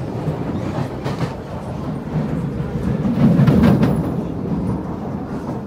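Kawasaki C751B electric multiple unit running along the track, heard from inside the car: a steady rumble of wheels on rail with a few clicks. The rumble swells louder about three seconds in, then eases.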